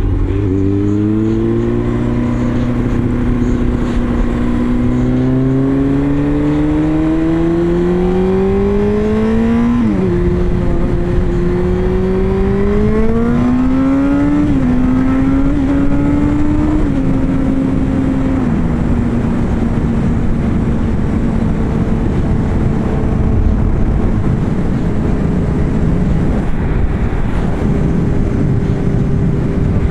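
Honda CBR sport bike's inline-four engine pulling hard, its pitch climbing for about ten seconds and dropping sharply at an upshift. It climbs again through more shifts, then holds steady at cruising speed. Wind rushes over the microphone throughout.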